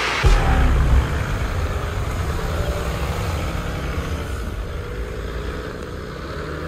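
Toyota LandCruiser 100 Series four-wheel drive driving slowly past at close range, its engine running steadily. It is loudest in the first second and gradually fades as the vehicle moves away.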